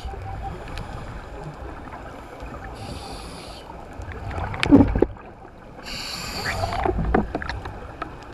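Scuba diver breathing through a regulator, heard underwater through the camera housing: a short hiss of inhalation about three seconds in and again near six seconds, each followed by a rush of exhaled bubbles, the first of them the loudest.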